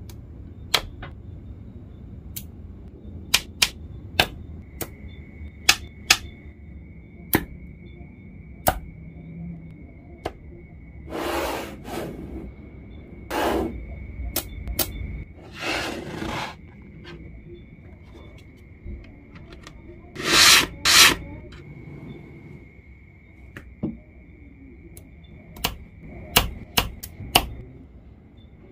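Small neodymium magnetic balls snapping together with sharp single clicks, one after another at irregular intervals, with a few longer scraping bursts where balls are rubbed and slid against each other.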